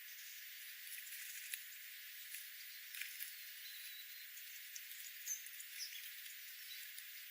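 Faint steady hiss with scattered ticks and a few brief high chirps from small wild birds.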